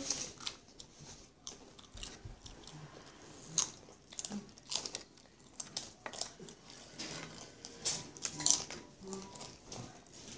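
Children chewing and biting into cheese-topped tortilla chips (nachos): irregular crisp crunches with a few louder bites.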